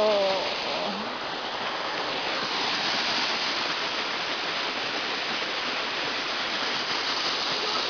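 Waterfall rushing, a steady, even hiss of falling water, with a brief voice right at the start.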